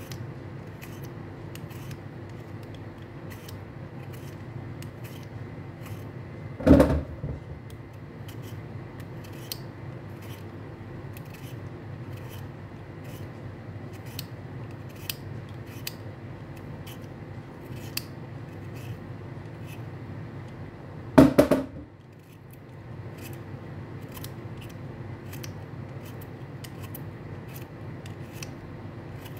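Vegetable peeler scraping the skin off raw beetroot in short, repeated strokes, roughly one or two a second, over a steady low hum. Two louder knocks come about 7 seconds in and again about 21 seconds in.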